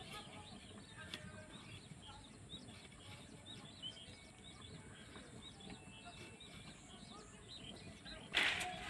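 Small birds chirping over low background noise. Shortly before the end, a louder hissing noise starts suddenly.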